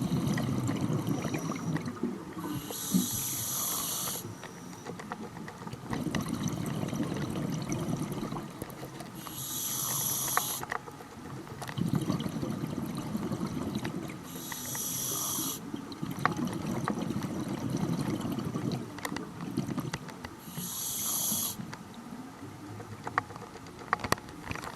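Scuba diver breathing through a regulator underwater. There are four breaths, about six seconds apart. Each one is a short high hiss from the demand valve on the inhale, then a longer low rumble of exhaled bubbles.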